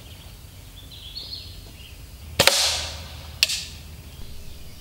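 A .177 Gamo Silent Cat break-barrel air rifle fires once about halfway in: a sharp crack with a short hissing tail. A second sharp crack follows about a second later.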